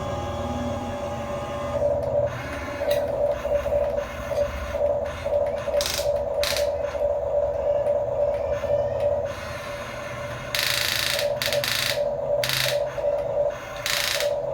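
Small electric gear motors of a radio-controlled toy construction vehicle whirring in short, stop-start spurts, with a low hum underneath and a few brief hissing scrapes.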